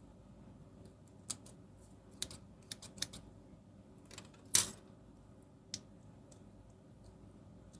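Light clicks and taps of small plastic pen parts and tools being handled on a work surface, irregularly spaced, with one louder knock about halfway through.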